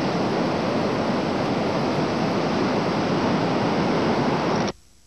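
A steady, loud rushing noise with no distinct tones, cutting off abruptly near the end.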